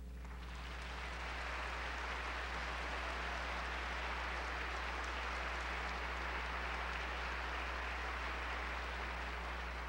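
Audience applauding steadily after a choral piece ends, swelling in over the first second, with a steady low hum underneath.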